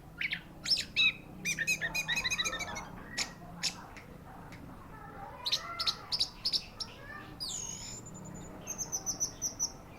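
Orange-headed thrush (anis merah) singing a varied song of rapid runs of repeated sharp notes and whistled phrases, with downward-sweeping whistles and a short held high note in the second half.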